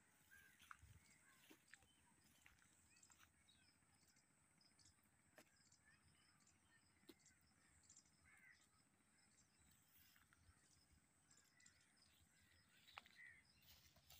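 Near silence: faint outdoor ambience with scattered soft ticks and a few faint, distant bird calls.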